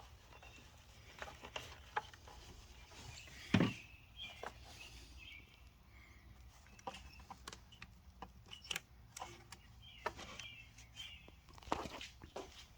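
Faint scattered clicks and knocks of hand tools being fitted onto the engine's oil filter housing cap, with one louder metallic knock about three and a half seconds in.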